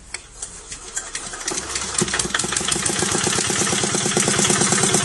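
An engine running with a rapid, even pulse, growing louder over the first two seconds and then holding steady.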